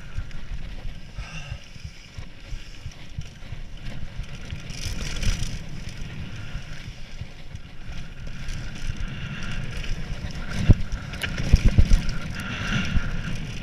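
Mountain bike riding fast down a dirt singletrack, with wind buffeting the microphone and a steady rumble from the tyres on the dirt. In the last few seconds come a run of sharp knocks and rattles as the bike hits bumps.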